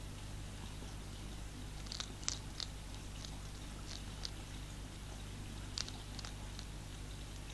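A hedgehog crunching dry pellet food from a tray: short, sharp crunches in small clusters a couple of seconds apart, over a steady low hum.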